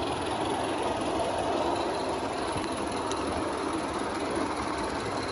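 Accucraft Sabrina G-scale live steam locomotive running under load, its steam exhaust chuffing steadily through a Summerlands Chuffer fitted to the blast pipe.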